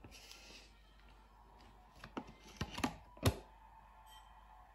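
A spoon tapping and knocking as cream is spooned onto a slice of lemon tart on a plate: a few light clicks about two seconds in, then a sharper knock a little after three seconds.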